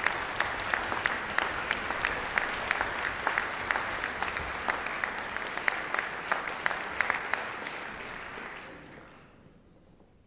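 Audience applauding in a concert hall, the clapping dying away about eight seconds in.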